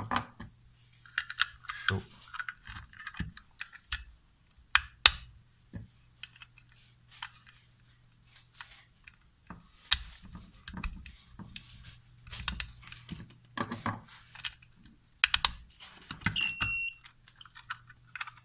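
Irregular plastic clicks and knocks as the US211M Lite digital flow meter's housing and battery holder are handled and pressed back together. Near the end the meter gives one short, high electronic beep from its built-in buzzer as it powers up.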